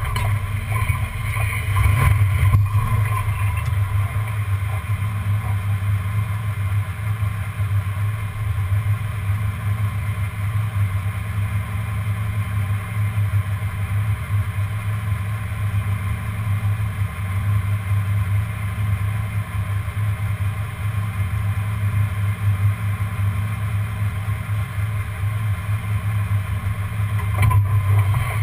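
1994 Ford Bronco's engine running steadily at low speed as the truck crawls through brush, a constant low rumble heard from underneath the vehicle.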